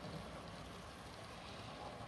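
Model train, a steam locomotive hauling passenger cars on layout track, running steadily: a low rumble and whir from the motor and wheels on the rails.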